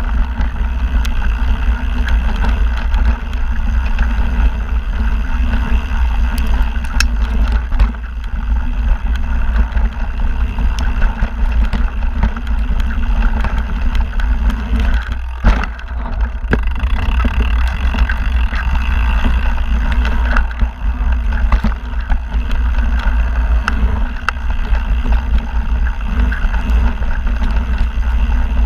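Mountain bike descending a dirt singletrack: tyres rolling over the ground and the bike rattling over roots and bumps, with steady wind buffeting the camera microphone. There is a brief lull about halfway through.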